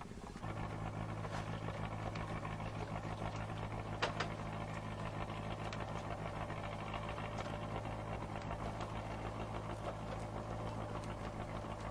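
Engine of a passing odong-odong, a small motor fishing boat, running steadily with an even low hum. There is a light click about four seconds in.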